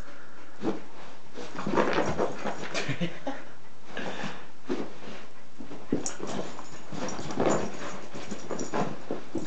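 A boxer dog playing on its back, mouthing a person's hand and making short, irregular play noises.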